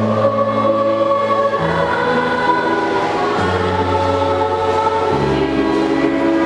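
School choir singing in harmony, holding sustained chords that change about every one and a half to two seconds.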